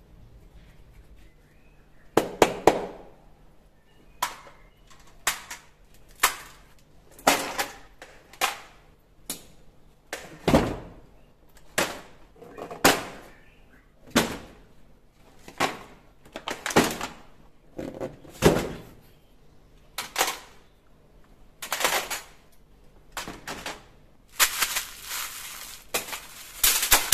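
Toy guns and their cardboard boxes being set down one after another on a mat: a string of thunks and plastic clatters about once a second. Near the end comes a longer crinkling of small plastic bags of gel-blaster beads.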